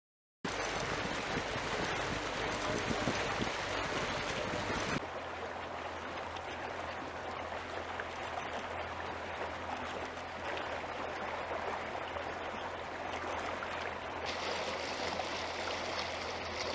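Steady rushing, trickling water. It begins abruptly about half a second in, is loudest for the first few seconds, and changes abruptly about five seconds in and again near the end.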